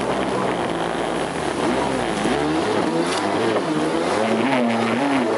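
Jet ski engine running at speed, its pitch rising and falling repeatedly as the revs change, over a rush of wind and water spray.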